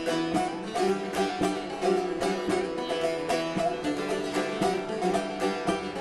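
Bağlama (long-necked Turkish saz) played in a quick, rhythmic strummed instrumental passage of Turkish folk music, with no singing.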